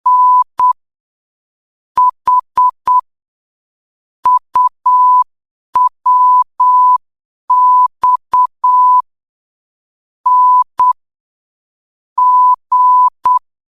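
Morse code practice tones: a steady beep near 1 kHz keyed into short dits and long dahs, sent as separate letters with long gaps of silence between them, about seven letters in all. Each tone starts with a sharp key click.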